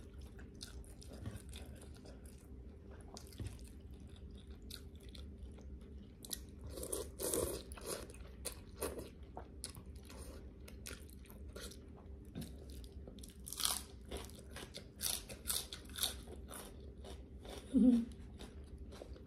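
Close-up chewing of crispy pork cracklings (khaep mu) eaten with a spicy noodle salad: irregular crisp crunches and bites, with denser bursts of crunching about a third of the way in and again past the middle. Near the end there is a brief low hum, the loudest sound.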